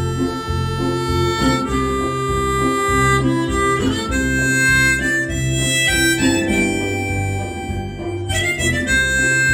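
Harmonica playing a slow melody in held notes, with guitar accompaniment underneath: the instrumental introduction of an old Korean pop ballad before the vocal comes in.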